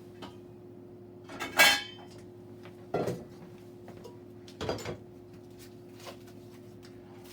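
Cookware being handled in preparation for boiling: a loud ringing metallic clank about one and a half seconds in, then two duller knocks near three and five seconds, over a steady hum.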